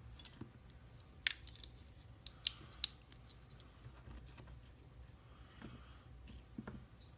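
Key working in an Iseo euro cylinder lock to lock it back up, giving a few sharp metallic clicks: one about a second in, then three in quick succession a little later.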